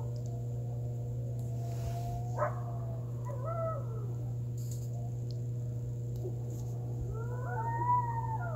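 A group of coyotes howling and yipping in wavering calls that rise and fall in pitch: a few calls about two and a half seconds in, then a chorus building near the end. A steady low hum runs underneath.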